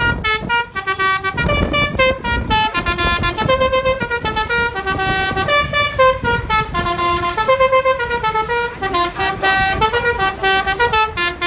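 Basuri-type telolet bus horn playing a fast melody of short notes that step up and down in pitch, one after another with hardly a gap, over low road and engine rumble.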